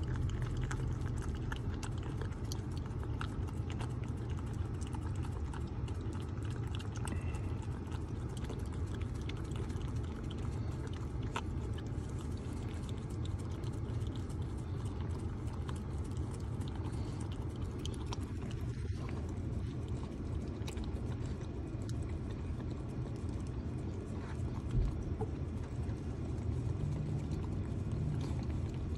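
Corgi puppy licking and lapping whipped cream out of a paper cup: a long run of quick, wet, irregular tongue clicks and smacks over a steady low hum in a car cabin.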